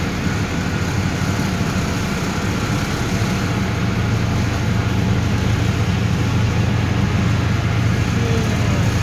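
Ferry's diesel engines running with a steady low drone, mixed with a rush of wind and water along the hull, heard on the open deck.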